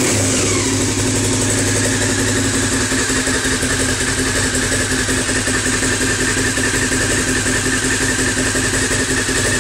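Honda CB500 parallel-twin engine, a freshly fitted replacement on its first start, running through an IXIL Xtrem aftermarket exhaust with the dB killer fitted. The revs fall away in the first second and it settles into a steady idle with even exhaust pulses.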